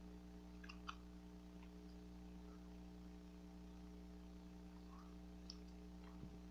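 Near silence: a steady low electrical hum, with a few faint, short wet clicks from the mouth chewing bubble gum, a small cluster about a second in and two more near the end.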